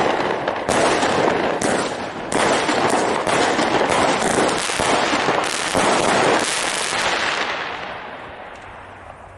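Klasek Signature Range 49-shot firework cake firing a rapid barrage of shots and bursts. The shots stop about two-thirds of the way through, and the sound dies away.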